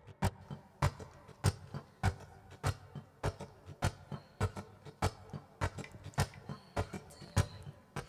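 Rhythmic percussive taps and muted strums on an acoustic guitar, a steady beat of about three hits a second with every other hit stronger.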